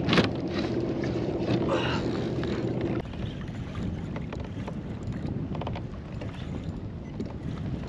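Wind on the microphone and water around a fishing kayak as a hooked halibut is fought on rod and reel. A sharp knock comes right at the start as the rod is pulled from its holder, and a steady low hum cuts off suddenly about three seconds in. A few faint clicks follow later.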